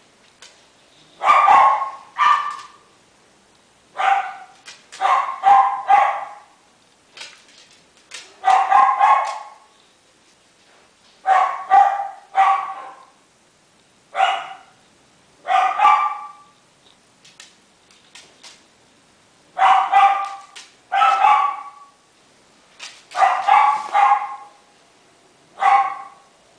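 Miniature schnauzer puppy, about four weeks old, giving short high-pitched yips and barks. They come in clusters of one to four, every two to three seconds.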